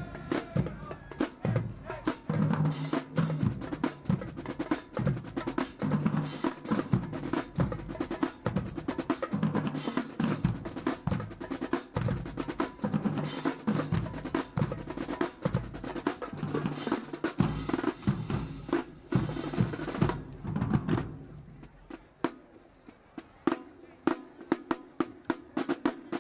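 High school marching band drumline playing a fast percussion cadence on snare and bass drums. It thins out and drops in volume about 21 seconds in, then picks up again near the end.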